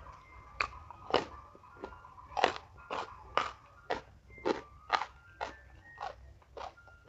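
A person chewing crunchy food close to the microphone, with a crisp crunch about twice a second.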